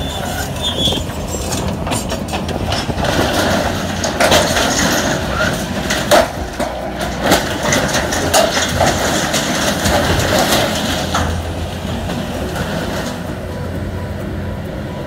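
A heavy vehicle's engine running steadily, with a run of rattles and clanks through the middle that dies down after about eleven seconds.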